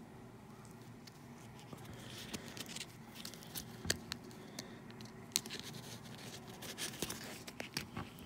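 Hard plastic coin holders handled by fingers: faint scratchy rustling with a string of light clicks and taps starting about two seconds in, the sharpest near the middle.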